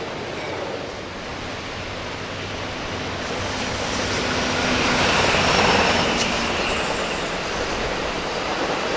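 A passenger train running past on the rails, its wheel and rail noise swelling to its loudest about five to six seconds in, then easing a little.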